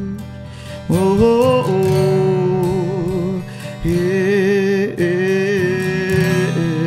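Acoustic guitar strummed under a man's voice singing long held notes with vibrato, new notes coming in about a second in, near four seconds and near five seconds.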